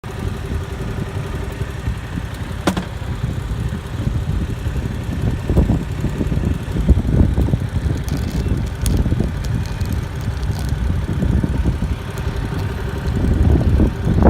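2018 Yamaha MT-07's 689 cc parallel-twin engine idling through its stock exhaust.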